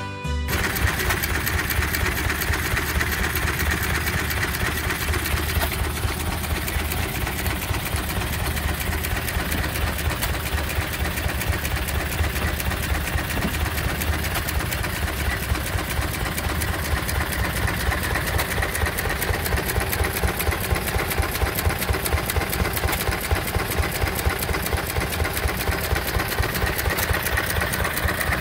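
Antique International stationary gasoline engine running and driving a piston water pump by a flat belt: a steady, rapid mechanical clatter over a low hum, with water pouring into a metal pail.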